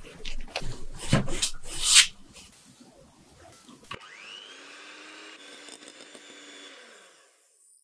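A plastic dough scraper presses and cuts through soft dough on a board, giving a few sharp knocks, the loudest about two seconds in. About four seconds in an electric hand mixer starts up, its whine rising as it spins up, then runs steadily whipping cream in a glass bowl until it stops just before the end.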